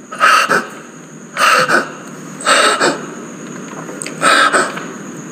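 A man breathing hard close to the microphone: four loud, rasping breaths, each about half a second long, coming roughly every second and a half.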